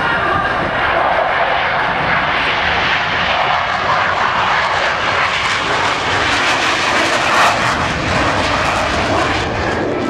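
Jet roar of Blue Angels F/A-18 Hornets flying past, a steady loud rush whose high hiss grows stronger from about the middle and peaks near the end.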